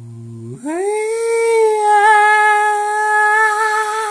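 A voice humming a quiet low note, then sliding up into one loud, high held note that wavers slightly.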